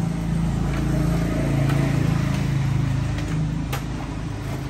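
Engine hum of a motor vehicle going by, swelling to its loudest about two seconds in and then fading, with a few light knocks as folded camping gear is pushed into a car's boot.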